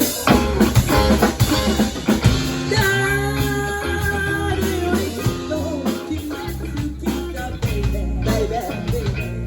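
Rock band playing the instrumental intro of a song: drum kit, bass and electric guitar together, with a steadily stepping bass line and held melody notes.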